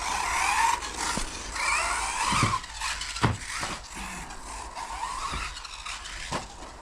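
Electric RC buggy's brushless motor (Supersonic V2 3660, 4250 kV, on 2S) whining up and down in pitch as the throttle is worked, with several sharp knocks from the car hitting or landing.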